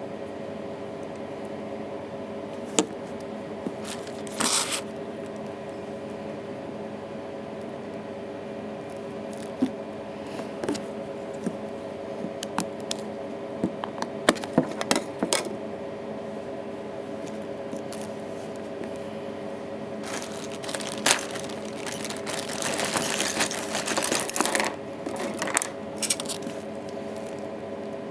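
Scattered small clicks, taps and scrapes of hands handling a phone and small tools, with a longer stretch of scraping and rustling near the end, over a steady machine hum.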